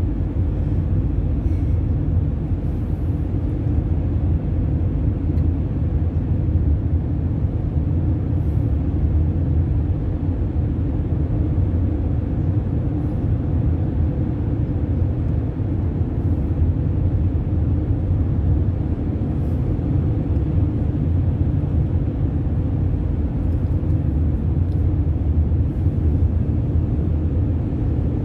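Steady low rumble of tyre and engine noise, heard from inside a car cruising through a road tunnel.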